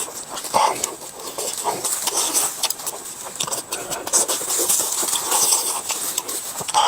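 Chewing and eating: irregular wet mouth clicks and crunchy bites, with a few brief mouth noises between them.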